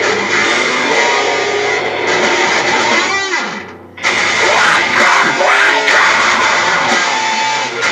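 Electric guitar played loud in a deadcore band rehearsal, riffing densely. About three seconds in the playing thins out with a sliding pitch and stops briefly, then comes back in loudly at about four seconds.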